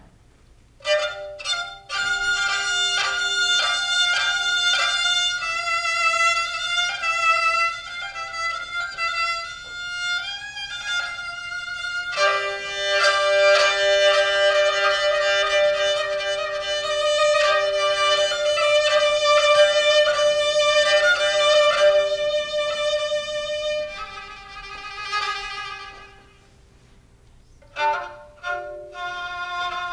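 Kurdish kamancheh (bowed spike fiddle) played solo in long held and gliding notes, with a low drone note sounding beneath at times. The playing starts about a second in and breaks off briefly near the end before resuming.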